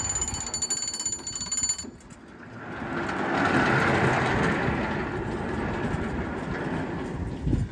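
Sawmill running under power: a high whine with rapid ticking stops about two seconds in, then a broad rushing mechanical noise swells up and carries on.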